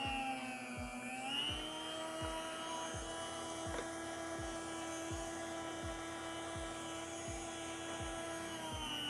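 Cusimax CMFS-200 electric food slicer running while slicing brisket. Its motor gives a steady whine that dips in pitch for about a second at the start, then rises back and holds steady.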